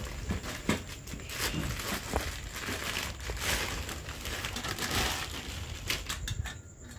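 Clear plastic wrapping crinkling and rustling as it is pulled off stainless-steel idli plates, with a few light clicks near the end.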